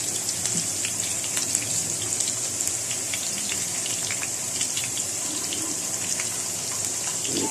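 Food frying in hot oil in a pan: a steady sizzle with many small pops and crackles of spattering oil.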